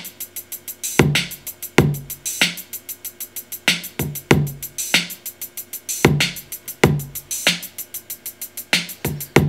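A step-programmed Southern hip-hop drum loop playing back on a Native Instruments Maschine: a fast, even run of closed hi-hats on every step, with snares and heavier low drum hits in a repeating pattern. A few open hi-hats have just been added to the pattern.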